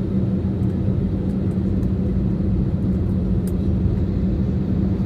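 Airbus A320-214 cabin noise heard from a window seat over the wing: the CFM56 turbofan engines and rushing airflow make a steady noise with a constant low hum, while the airliner descends towards landing.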